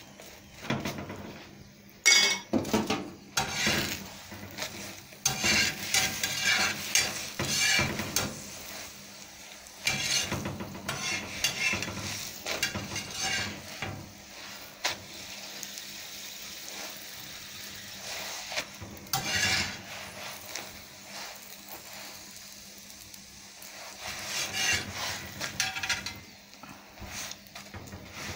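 Paratha frying in ghee on a tawa, with a light sizzle, while a spoon spreads the ghee and a metal spatula scrapes and presses the paratha against the griddle, in several bursts of scraping and clinks.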